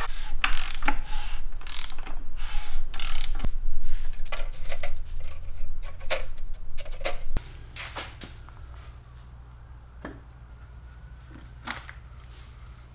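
Metal engine parts and hand tools being handled during engine reassembly: a busy run of clicks, taps and rubbing. About seven seconds in it drops suddenly to a quieter stretch with only a few light clicks.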